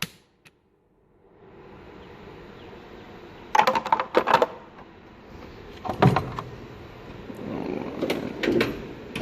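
Metal hand tools clinking against each other and the steel toolbox drawer as they are handled, in a few clusters of sharp clinks over a steady hiss.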